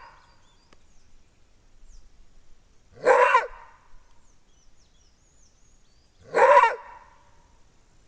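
Maned wolf giving its roar-bark: two loud, single barks about three seconds apart, each rising sharply at its start. Faint bird chirps are heard between them.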